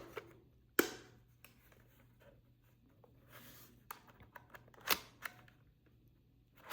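Handling of a Fujifilm Instax Mini 11 instant camera: two sharp plastic clicks, about a second in and near the five-second mark, with lighter ticks and a brief rustle in between.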